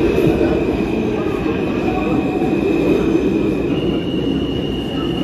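New York City subway train running through the station: a steady heavy rumble with a high-pitched wheel squeal held throughout, which steps up slightly in pitch about four seconds in.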